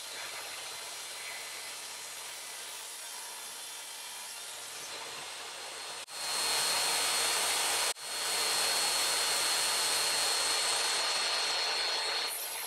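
DeWALT DWE7485 jobsite table saw running with a dust-extraction hose on its blade guard, ripping scrap-wood boards. It steps up about halfway through to a louder cut with a steady high whine, breaks off abruptly twice, and drops back near the end.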